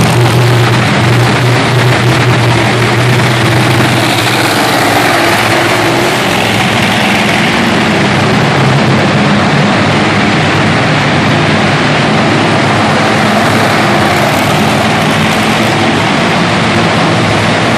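Monster truck big-block V8 engines running loud and steady, slightly louder at the start.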